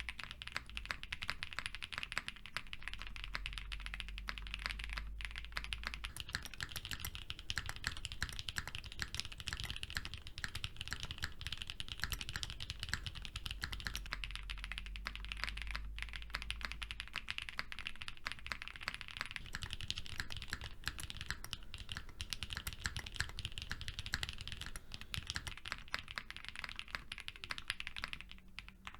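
Fast, continuous typing on gasket-mounted Odin custom mechanical keyboards with lubed Whipped Cream linear switches, a polycarbonate plate, full foam dampening and GMK keycaps, switching between the V1 and V2 boards in turn. There are brief breaks about 5 and 16 seconds in.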